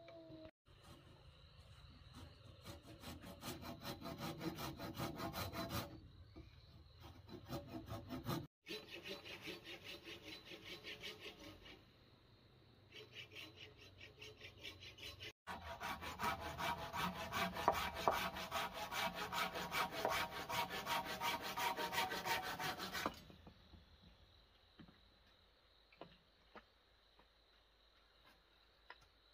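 Hand saw cutting wood: rapid, even back-and-forth strokes in three spells with short pauses between, the last spell the longest and loudest.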